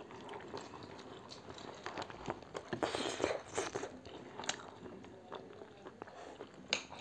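People eating noodles with chopsticks: close-up chewing and slurping with scattered small clicks, a few louder slurps about three to four and a half seconds in.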